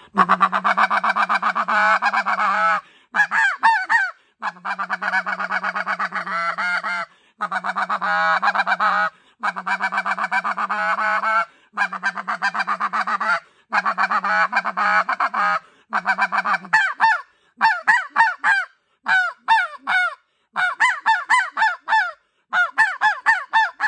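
NoCo White Out snow goose call blown in a full calling cadence, imitating a flock of snow geese: runs of fast, high-pitched honks in bursts of about two seconds with short breaks between. In the second half these give way to quicker strings of separate short notes.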